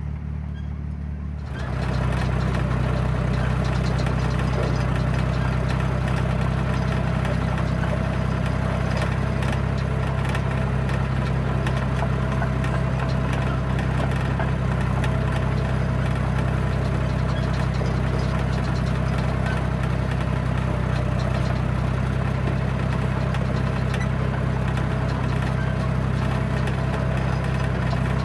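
John Deere crawler dozer's diesel engine running, stepping up in level about a second and a half in and then holding steady, with a fine clatter over it.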